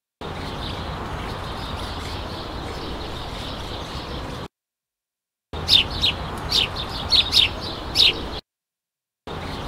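Park ambience recording played three times: first as a steady, even background hiss with the bird calls removed by noise-separation processing, then after a short silence the unprocessed original with small birds chirping repeatedly over the same hiss, then after another gap the processed hiss alone again.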